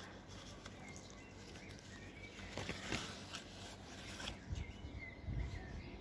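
Quiet outdoor ambience with faint, scattered bird chirps. Leaves rustle and there are a few soft clicks as a hand handles loquats on the branch, with a low wind rumble on the microphone near the end.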